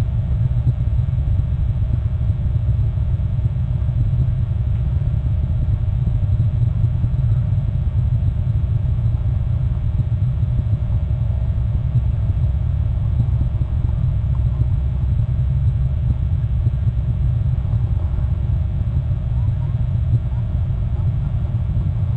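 Steady low rumble of wind buffeting an outdoor nest-camera microphone.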